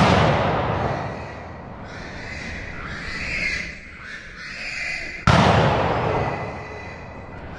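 Two gunshots about five seconds apart, each a sharp crack with a long echoing tail, fired at a herd of feral hogs.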